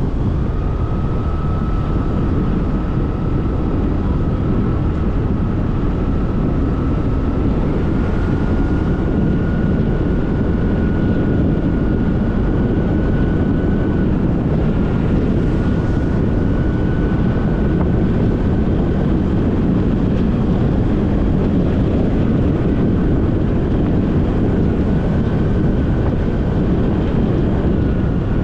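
Steady wind and road noise from riding a motorbike at speed, the wind rushing over the camera, with a thin whine that creeps slowly upward in pitch.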